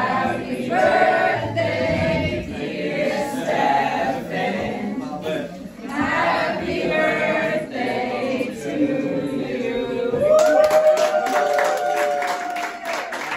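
Several voices singing a song together, ending on a long held note about ten seconds in, with hand clapping starting over the final note.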